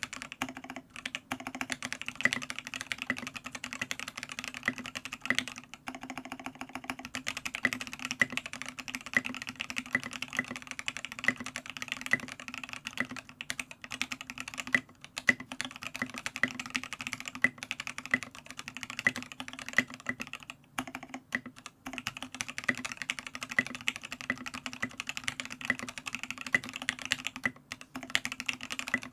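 Continuous fast typing on a Matrix Noah 65% keyboard with an aluminium plate, lubed C³Equalz Tangerine linear switches and KAT Milkshake keycaps, a dense run of keystroke clacks broken by a few brief pauses.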